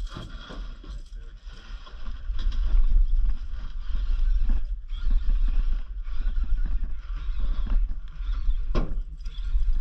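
Wind buffeting the camera's microphone: a gusty low rumble that rises and falls, with a sharp click near the end.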